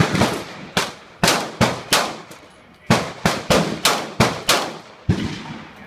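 Gunshots from other shooters on the range: about a dozen sharp, echoing reports, irregularly spaced, some in quick runs of three or four.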